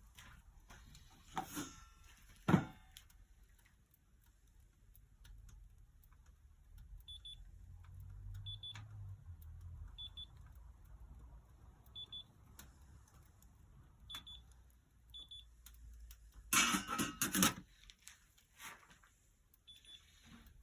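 Short double electronic beeps, high-pitched, repeating at uneven intervals. Two sharp knocks come near the start, and a brief loud burst of rustling noise comes near the end.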